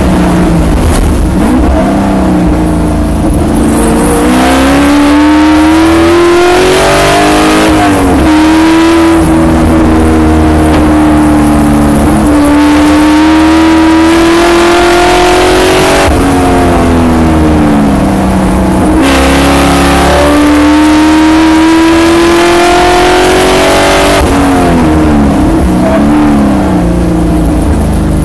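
Spec Corvette's V8 engine heard from inside the car at racing speed. The revs climb under power and fall away sharply at each lift and gear change, about six times, over steady wind and road noise.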